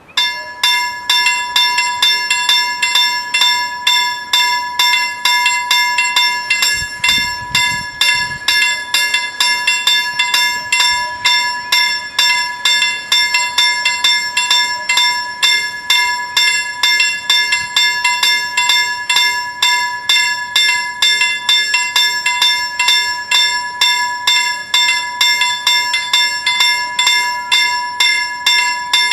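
Two level-crossing warning bells striking rapidly and steadily, starting suddenly from quiet: the crossing's alarm that a train is approaching and the barriers are coming down.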